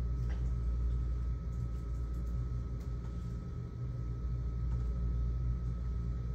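Steady low mechanical hum with a faint constant high whine above it.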